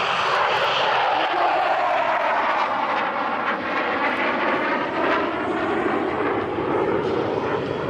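F-16 Block 40 fighter jet flying past with a steady jet-engine roar. Its pitch falls as it goes by.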